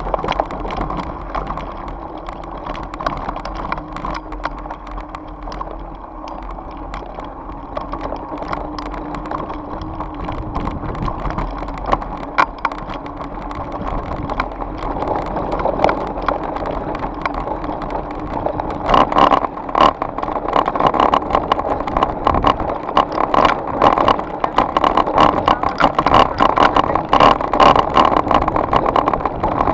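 Electric mountain bike rolling down a rocky gravel track: tyres crunching over stones and the bike rattling over bumps, while it coasts with the pedals still. About two-thirds through the ground gets rougher and the clattering turns much louder and denser.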